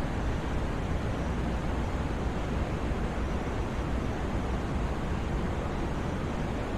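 Steady white noise for sleep: an even, unbroken hiss with a fuller low end, unchanging throughout.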